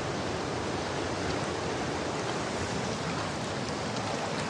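Steady rushing noise of choppy river water washing against a rocky bank.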